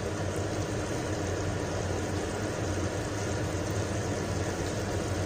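Steady low hum with an even hiss, unchanging throughout, with no clear knocks or scrapes.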